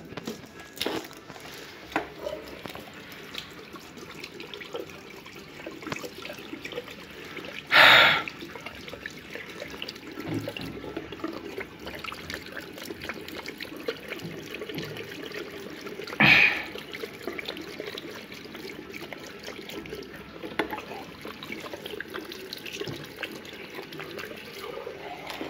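Water running from a chrome tap into a ceramic wall-mounted washbasin, splashing steadily around the drain. Two short, loud rushes of noise stand out, about eight seconds apart.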